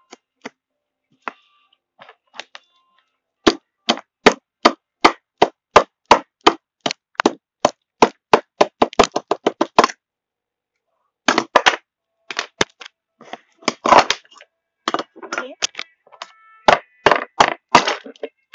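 A pen tip jabbing repeatedly at a block of ice in a bowl, making sharp cracking taps, about two or three a second and quickening. After a short pause about 10 seconds in, the strikes resume more irregularly.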